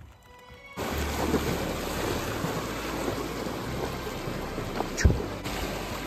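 Fast-flowing mountain river rushing over rocks, a steady noise that cuts in suddenly about a second in. A single sharp knock about five seconds in.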